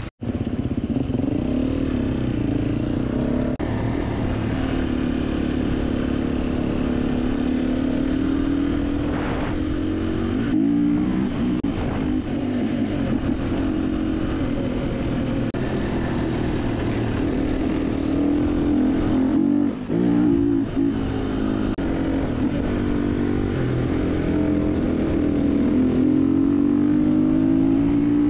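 Gas Gas 350 dirt bike's single-cylinder four-stroke engine running under way, heard from on board the bike, its pitch rising and falling with the throttle.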